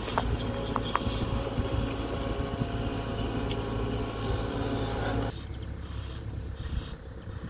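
Small excavator's diesel engine running steadily while it works a pile of wet dredged mud. About five seconds in, the engine sound gives way abruptly to quieter background noise.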